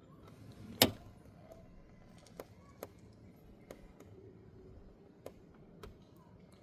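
Car key put into the ignition lock and turned for immobilizer key programming: one sharp click about a second in, then a few faint clicks.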